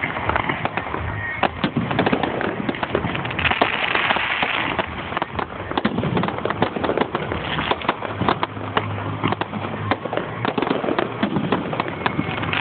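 Fireworks display going off continuously: a dense run of rapid bangs and crackling reports with no pause.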